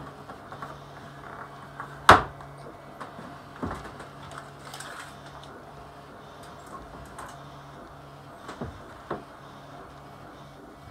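The aluminium guide rail of a mat cutting system knocks down onto a sheet of hardboard about two seconds in. A few lighter knocks and taps follow as the board and a tape measure are handled.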